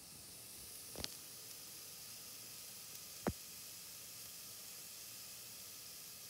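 New York strip steaks sizzling on a charcoal hibachi grill: a faint steady hiss. Two sharp pops come about two seconds apart, the second louder.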